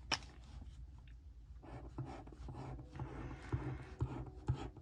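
A glue pen rubbed over the back of a paper picture in short scratchy strokes, with a sharp click just after the start and a few light taps.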